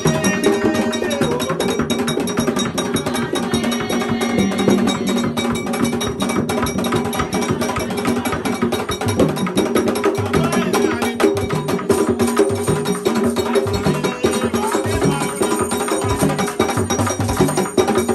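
Haitian Vodou ceremonial drumming: hand drums beaten in a fast, steady rhythm with a sharp clacking percussion part, and voices singing along.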